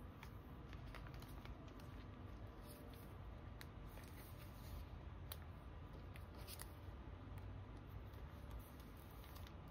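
Soft plastic crinkles and light ticks from photocards in card sleeves being handled and slid into the clear plastic pocket pages of a ring binder, a few louder crinkles standing out, over a low steady rumble.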